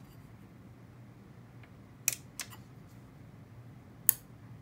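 Clicks of a Peavey IPR2 2000 DSP power amplifier being switched on: two quick clicks from the push-on power switch about two seconds in, then a single louder click about four seconds in as the power relay engages, a sign that the repaired amp is powering up. A faint low hum runs underneath.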